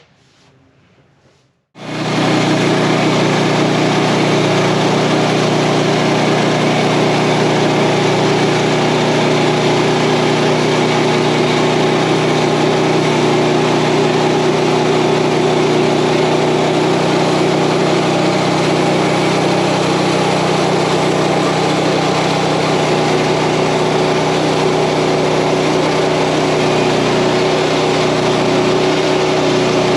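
Portable bandsaw sawmill's gas engine running steadily at speed, starting abruptly about two seconds in after near silence.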